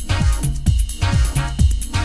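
Background electronic dance music with a steady kick-drum beat, about four beats a second, over a bass line.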